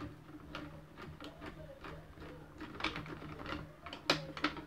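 Small irregular clicks and taps of a screwdriver and fingers working plastic parts and a switch inside an opened Nerf blaster shell, with a sharper click about four seconds in.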